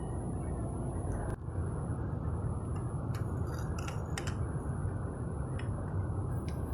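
Fiat Punto engine idling steadily, with a few sharp light clicks and taps in the middle.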